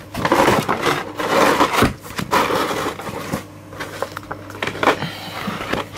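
Toy packaging being handled: rustling and scraping of the box and bag, busiest in the first three seconds, then a few light clicks.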